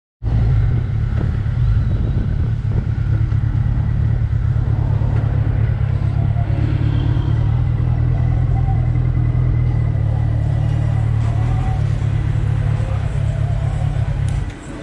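Motorcycle on the move at a steady speed, its engine and wind rumble loud and low; the rumble drops away suddenly near the end.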